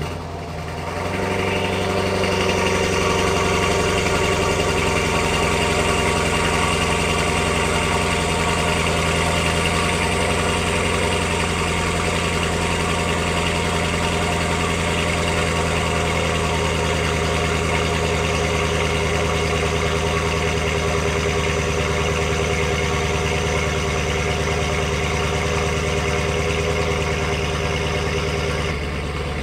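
Mercedes-Benz S550's twin-turbo V8 cold-starting through catless downpipes and a resonator-deleted exhaust: it fires up at the start, rises over the first second or two and settles into a loud, steady fast idle, dipping slightly near the end.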